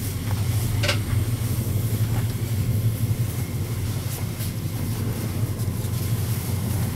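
Interior of a Swiss Federal Railways passenger carriage: a steady low hum and rumble from the train, with a few faint clicks.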